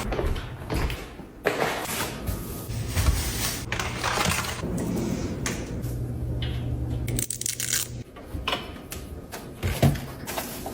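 Handling noises: irregular clattering and rustling, with a steady low hum through the middle that stops about seven seconds in.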